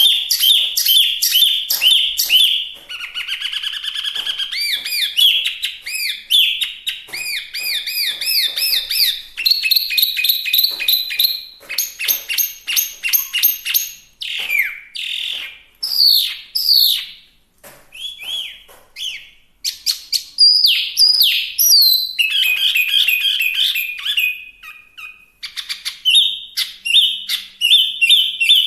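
A hwamei (wambi mini) singing a long, varied song: fast runs of repeated notes and trills mixed with rising and falling whistled phrases, with only brief pauses.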